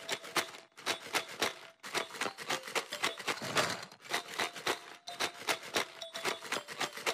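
Rapid clicking and clattering of plastic toy bricks and minifigures, many small clicks a second in quick bunches, with a faint held tone behind.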